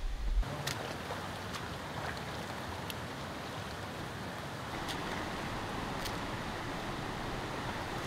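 A steady rushing outdoor hiss with a few sharp ticks scattered through it. It starts at a cut about half a second in, where a low rumble stops.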